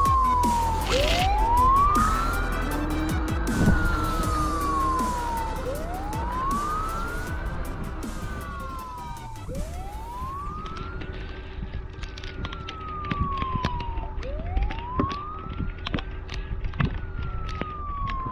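Toy siren from the Huina 1562 RC fire truck's sound module, wailing: a single tone that rises and falls slowly, about every four and a half seconds.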